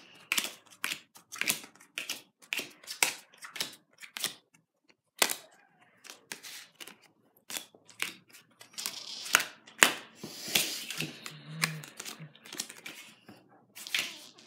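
Playing cards being dealt one by one onto a wooden table, a string of sharp snaps about two a second, growing busier with rustling about nine seconds in.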